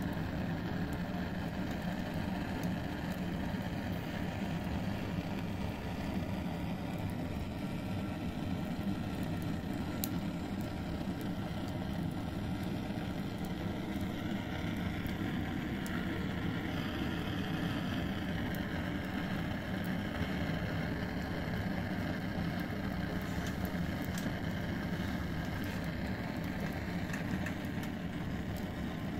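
A steady, unbroken roar from a hose-fed metal pipe blowing into the burning wood of a fire pit.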